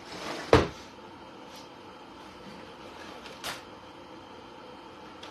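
A kitchen cupboard shutting with one loud bang about half a second in, followed by a lighter knock about three seconds later.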